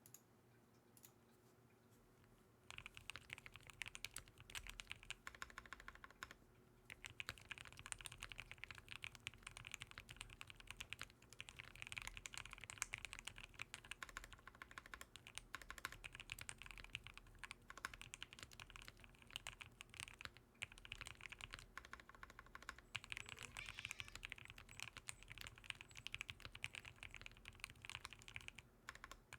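Rapid, continuous typing on a custom-built mechanical keyboard during a typing test, a dense patter of key clicks. It begins about three seconds in, with a brief pause a few seconds later and another near the end.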